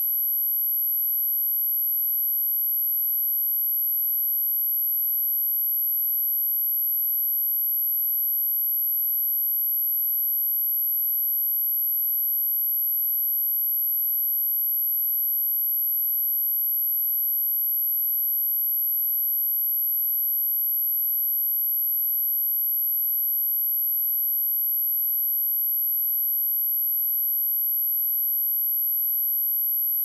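Synthetic pure sine test tone at 11,761 Hz, a single steady high-pitched whistle held at constant level without change.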